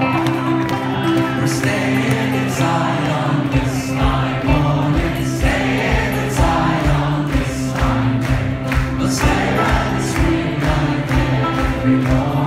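Live indie-folk band playing: several voices singing together over acoustic guitars and keyboard, heard from among the audience. A steady drum beat comes in about three and a half seconds in.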